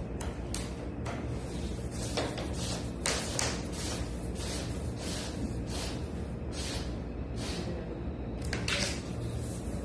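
Stiff PVC accordion-door panels clicking, knocking and scraping as hands push the stacked panels into line and slide a long white rod along their edge. Louder knocks come about three seconds in and again near the end, over a steady low hum.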